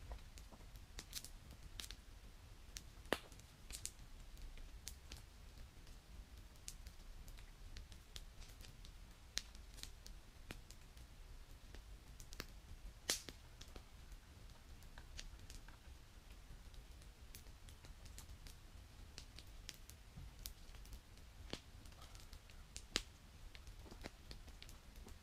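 Small campfire crackling faintly, with sparse, irregular sharp pops and snaps, a few louder ones, over a low steady rumble.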